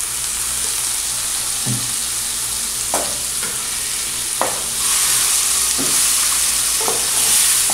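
Diced tomato, green pepper, onion and garlic sizzling in lard in a frying pan, just splashed with vinegar, while a spatula stirs and scrapes the pan with a few sharp knocks. The sizzle grows louder about five seconds in.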